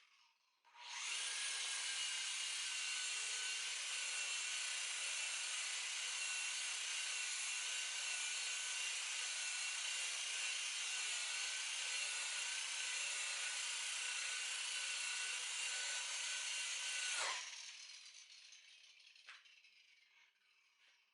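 Electric rotary buffer running steadily with a constant high whine, then switched off about three-quarters of the way through and spinning down, its pitch falling as it fades.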